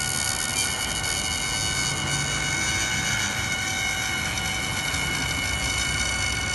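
CNC router with a water-cooled 3 HP spindle running and cutting wood: a steady high whine made of several pitches, over a rough cutting noise.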